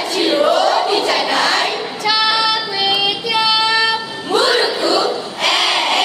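Children's voices performing choral speaking, a group chanting lines together, breaking into a short sung phrase of high held notes about two seconds in, then back to chanting.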